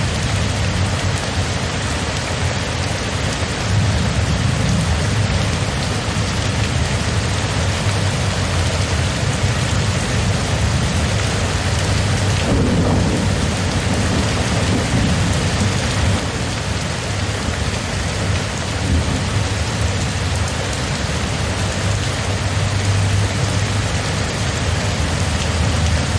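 Steady, even rainfall with a continuous low thunder rumble underneath, swelling briefly about halfway through.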